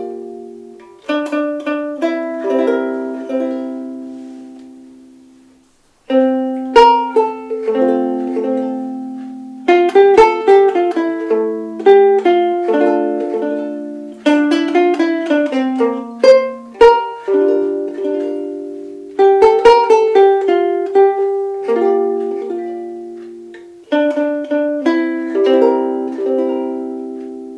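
Soprano ukulele played solo: plucked chords left to ring and fade, with quicker runs of single notes between them. The playing stops briefly about six seconds in, then starts again.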